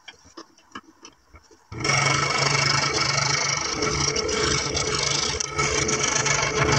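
A few light clicks as a plywood piece is handled on the saw table, then about two seconds in a scroll saw starts suddenly and runs steadily with a low hum, its blade cutting through plywood.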